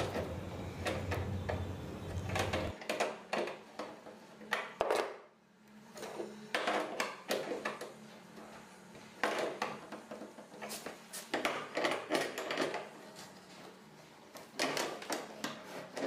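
Carpenter's pincers gripping and turning a bolt on a hydraulic bed-lift bracket fixed to a plywood bed box, making irregular metal clicks and scrapes as the bolt is tightened.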